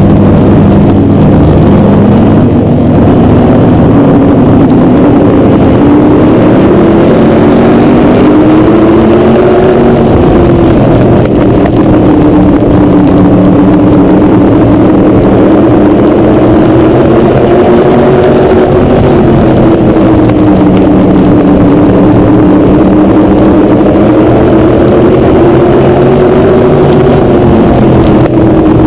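PASS Modified race car's V8 engine running loud on the oval, heard from a camera mounted on its own hood, with the engine note rising and falling in long, smooth swells every several seconds as the car runs around the track in a pack of other race cars. Heavy rumble and wind noise sit under the engine note.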